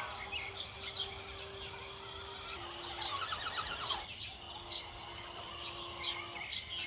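Birds chirping, short high calls repeating every second or so, over a faint steady hum.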